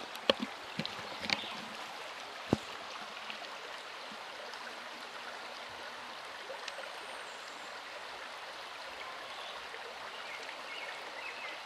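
Shallow river running steadily over stones, a continuous rushing babble, with a few sharp clicks in the first three seconds.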